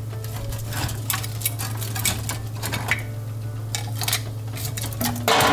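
Metal slotted spatula clicking and scraping against a baking sheet and oven rack as pieces of oven-dried tilapia are turned, a run of irregular light clicks over a steady low hum, with a louder scrape near the end.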